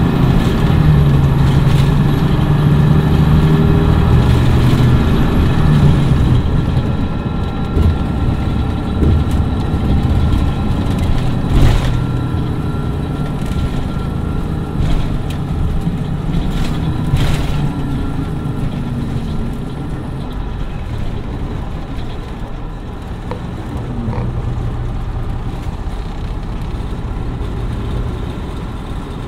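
Cummins ISM diesel engine of an MCI D4505 motor coach running. It is loudest for the first several seconds, then eases off and grows gradually quieter. Sharp knocks come about twelve and seventeen seconds in.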